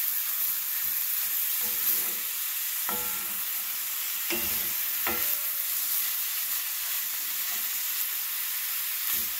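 Ground beef sizzling in a cast-iron skillet as it is stirred and broken up with a wooden spatula, with a few short scrapes of the wood against the pan.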